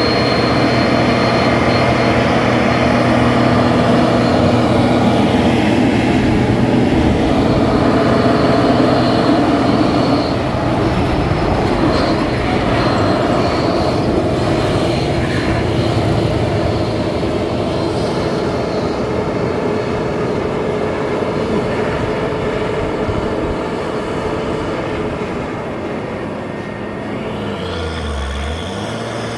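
Diesel engine of a Hino tractor unit pulling a heavily loaded semi-trailer at a crawl, a loud steady drone that slowly fades over the second half as the truck moves away. Motorcycles pass about halfway through.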